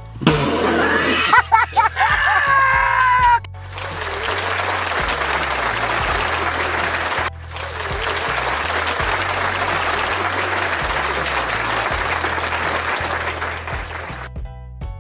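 Background music with a steady beat, over which a loud comedic sound-effect clip with a wavering, voice-like sound fills the first three seconds. Then comes a long stretch of applause-like noise with a brief break in the middle, ending just before the end.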